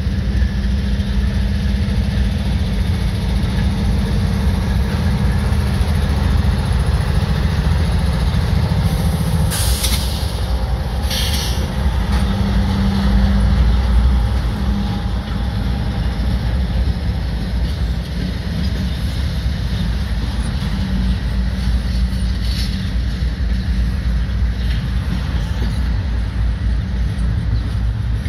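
CSX freight train passing close by. Its diesel locomotives go past with a deep, steady engine rumble that is loudest about halfway through, then double-stack container well cars roll by on steel wheels. Two brief high bursts of noise come about ten and eleven seconds in.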